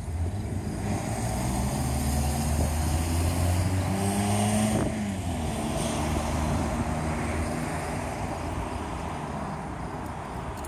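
A motor vehicle driving past close by. Its engine note rises to its loudest about four to five seconds in, drops in pitch as it goes by, then slowly fades.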